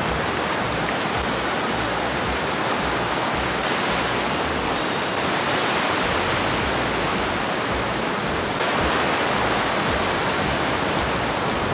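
Ocean surf breaking on the shore: a steady rushing wash that swells a little about nine seconds in.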